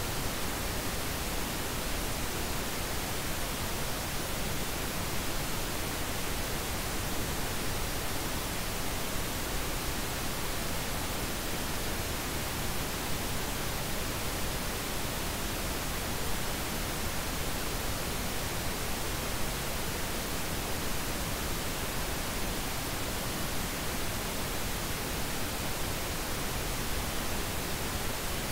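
Steady, unchanging noise hiss spread evenly from the lows to the highs, with no pitch, rhythm or change in level.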